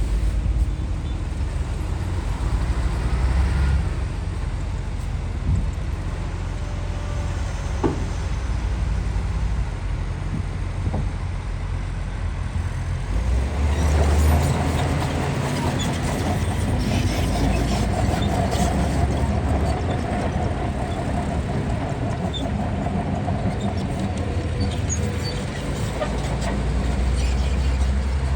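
Shantui DH17 C2 bulldozer's diesel engine running under load while pushing soil, a steady low rumble. About halfway through the sound grows fuller and a steady whine joins it.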